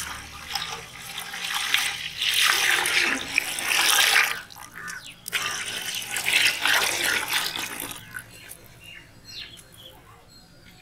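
Milk being poured into a cooking pot in three long pours with short breaks, the splashing quieter in the last few seconds.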